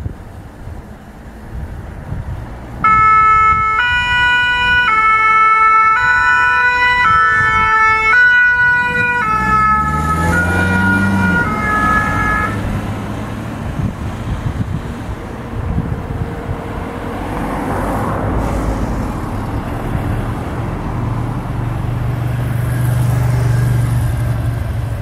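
French fire-brigade two-tone siren ("pin-pon") on departing rescue vehicles. It starts about three seconds in, switching between two notes roughly once a second, then shifts and dies out after about twelve seconds as a vehicle engine revs up and pulls away. After that comes engine and road-traffic noise, with a steady low engine hum near the end.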